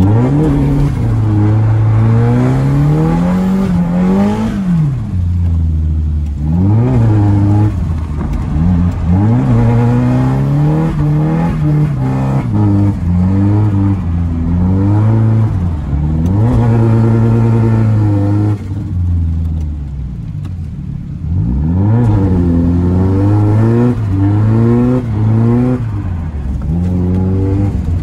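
Nissan 240SX's CA18DET turbocharged four-cylinder engine revving hard under drift driving, its pitch climbing and dropping again and again with several sharp dips, and a quieter, lower stretch about two-thirds through.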